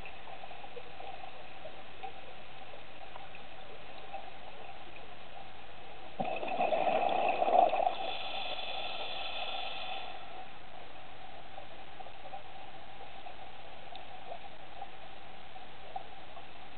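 Underwater sound on a scuba dive: a steady watery hiss, with a burst of bubbling about six seconds in that lasts under two seconds, typical of a diver's exhaled regulator bubbles.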